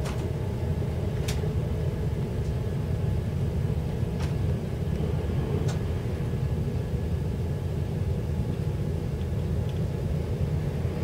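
Class 170 Turbostar diesel multiple unit heard from inside the passenger saloon while under way: a steady low rumble from the underfloor diesel engine and running gear, with a faint hum above it. A few sharp clicks or rattles come at scattered moments, about four in all.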